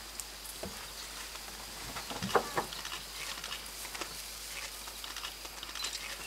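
Quiet bush ambience: a faint steady high-pitched insect drone, with a few short soft clicks and rustles about two and a half seconds in.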